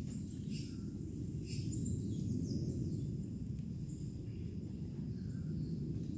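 Outdoor forest ambience: a steady low rumble with a few short, high bird chirps and calls over it, most of them in the first half and again near the end.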